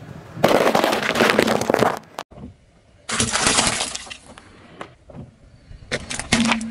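A car tyre rolling over and crushing crunchy objects such as gingerbread and hard candies on asphalt: three loud bursts of crunching and crackling, each about a second long, with quieter gaps between them.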